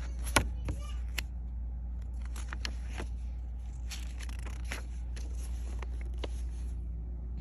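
Paper rustling with scattered sharp clicks and crinkles, typical of a picture book's pages being handled and turned, over a steady low hum. The sharpest click comes about half a second in.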